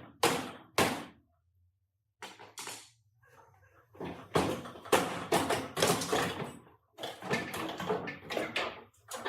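A series of sharp knocks, each trailing off briefly: two about half a second apart at the start, then a quick irregular run of knocks from about four seconds in until near the end.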